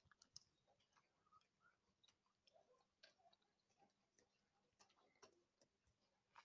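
Near silence: quiet room tone with faint, scattered small clicks and ticks.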